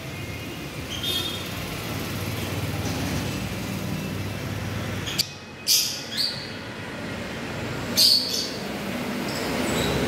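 Lovebirds giving a few short, shrill chirps, the loudest around six and eight seconds in, over a steady low rumble.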